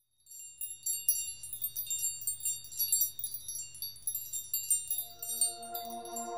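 Rapid high tinkling chime tones, a magic-sparkle shimmer sound effect for an animated logo, over a faint low hum. About five seconds in, soft sustained music notes come in beneath it.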